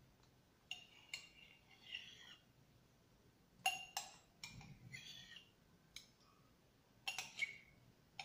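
Metal spoon clinking against a ceramic mug while scooping ice cream: about eight light clinks, each with a short ring, spaced irregularly.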